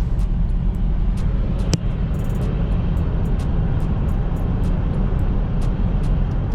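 Steady road and engine rumble inside a moving BMW 330i xDrive with its B48 turbo four-cylinder, with scattered faint clicks and one sharper click a little under two seconds in.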